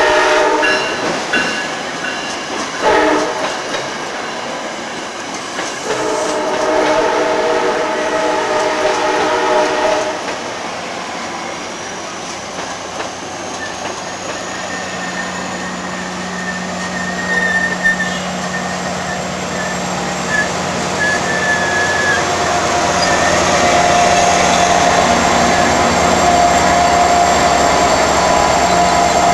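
Virginia Railway Express commuter train of bilevel coaches passing close by, wheels clattering on the rails, with a multi-note train horn chord at the start and again from about six to ten seconds in. Near the end the diesel locomotive pushing at the rear comes past, its engine hum growing louder.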